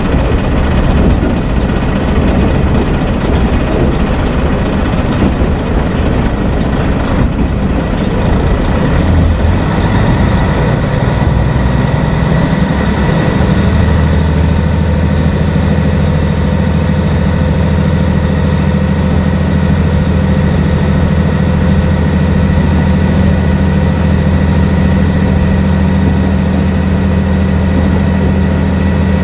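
Diesel railcar engine and running gear heard from inside the passenger cabin of a Kashima Rinkai Railway 6000-series car. The engine note climbs in pitch over a few seconds, then from about halfway through settles into a steady, strong drone under the rumble of the wheels on the track.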